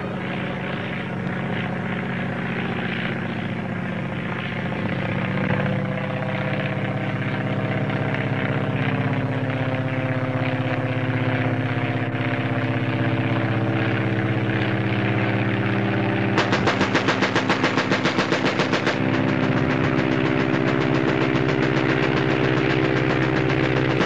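Aeroplane engine droning steadily overhead, joined about two-thirds of the way in by a water-cooled machine gun firing a fast, even stream of shots.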